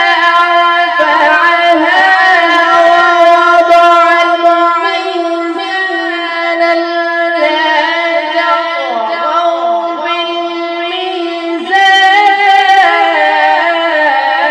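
A man's voice reciting the Quran in the drawn-out melodic tilawat style, amplified through stage microphones, holding long steady notes with small ornamented turns and short breaths between phrases.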